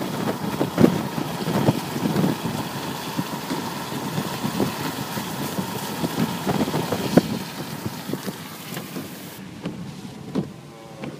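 Wind and rain noise on the microphone with irregular knocks, over a car engine running. About nine seconds in, the sound cuts to quieter, duller noise from inside the car.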